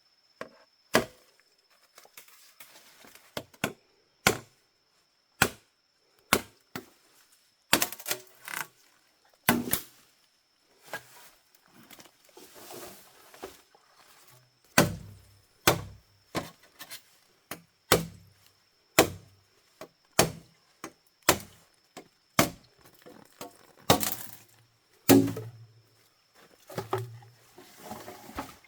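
Chopping with a blade on wood: an irregular series of sharp strikes, roughly one a second, some landing with a dull thud.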